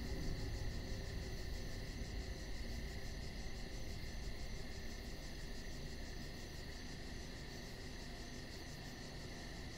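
Steady, cricket-like chirring with a faint even pulse, slowly fading.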